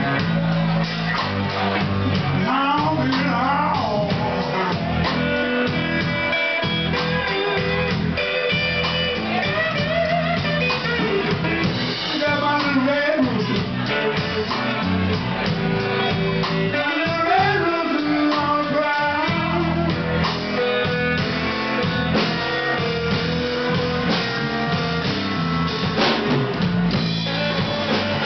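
Live blues band playing, led by an electric guitar with bending, sliding notes over bass and drums.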